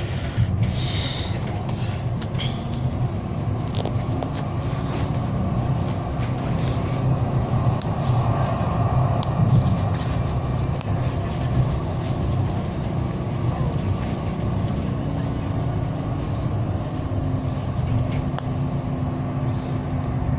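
Interior running noise of a Siemens-Duewag U2 light-rail car under way: a steady low rumble of wheels on the track. There are a few clicks in the first seconds, and a steady hum joins near the end.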